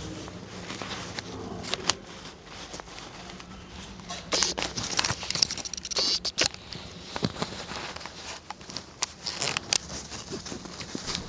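Rustling and crinkling with scattered sharp clicks, thickest between about four and six and a half seconds in, over a steady low hum.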